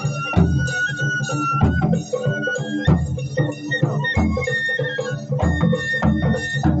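Japanese taiko drum ensemble with heavy drum strokes about every second. Over them a high shinobue (bamboo flute) melody holds long notes and steps between them.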